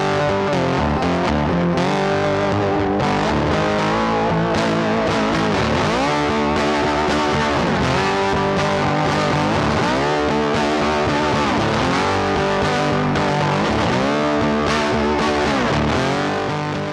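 Background rock music led by a distorted electric guitar, loud and steady, with notes sliding down and back up about every two seconds.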